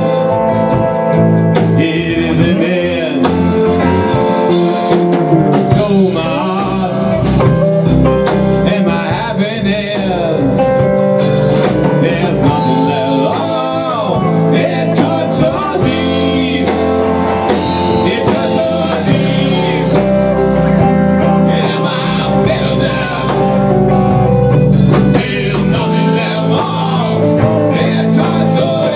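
A live rock band plays: electric guitar, electric bass and drum kit together, with bent guitar notes over a steady bass and drums.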